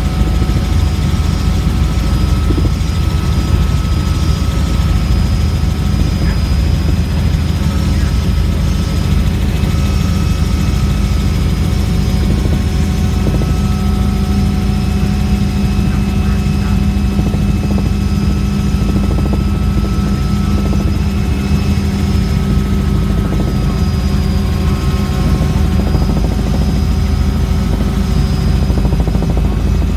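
Helicopter engine and rotor noise heard from inside the cabin in flight: a loud, steady drone with a few constant high-pitched whines over it.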